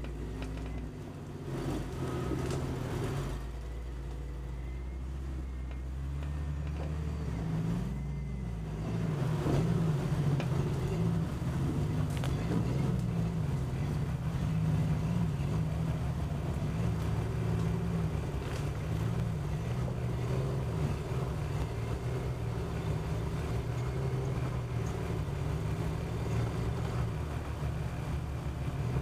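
Jeep Cherokee's engine idling low and steady, then from about eight seconds in running a little louder, its revs rising and falling as the Jeep crawls forward on the trail.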